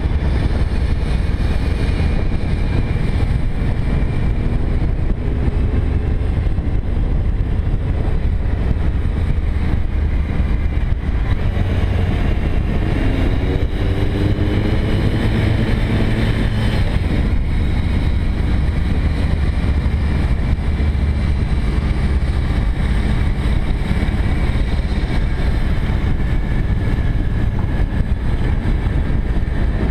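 Cruiser motorcycle engine running under way, heard from on the bike, with wind rushing over the microphone. The engine note climbs briefly about halfway through as the bike accelerates out of a bend.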